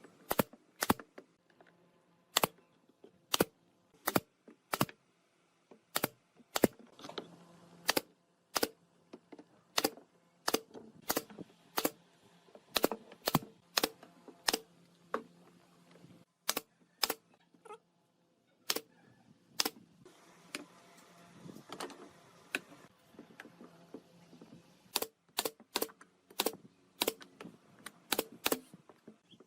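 Sharp knocks of a hand tool striking wood, about one or two a second at uneven intervals, with a pause of about two seconds past the middle.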